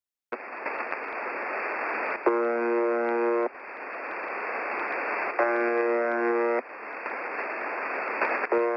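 Shortwave radio static from the UVB-76 station ('The Buzzer'), with its buzz tone sounding for about a second at a time, three times roughly three seconds apart, the last near the end. The static starts suddenly just after the start.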